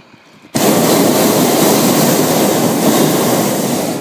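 Hot air balloon's propane burner firing in one loud, steady blast, heard from inside the basket. It starts abruptly about half a second in and cuts off near the end after about three and a half seconds.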